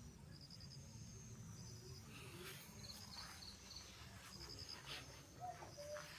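Faint insect chirping: short pulsed chirps, high-pitched, repeating every second or so over a low steady background rumble.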